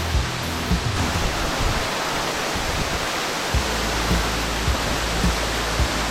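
Waterfall's steady rush of falling water, with background music's low beat thumping underneath.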